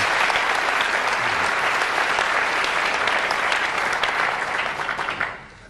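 Audience applauding: many hands clapping in a dense patter that dies away about five seconds in.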